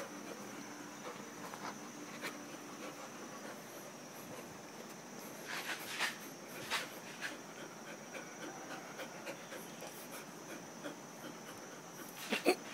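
Thai Ridgeback dog panting in short breathy bursts, mostly in the middle and again near the end, over a steady high-pitched hum.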